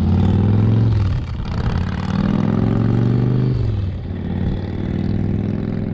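Motorcycle engine accelerating through the gears: its pitch climbs, drops sharply at a shift about a second in and again past halfway, then climbs once more.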